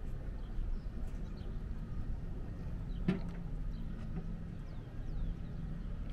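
Marina ambience: a steady low rumble with a faint engine hum, a few faint bird chirps, and one sharp click about three seconds in.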